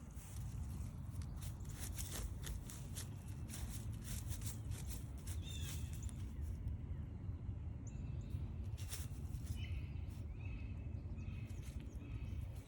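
Footsteps crunching along a forest trail, with short bird calls and a run of repeated chirps near the end, over a steady low rumble.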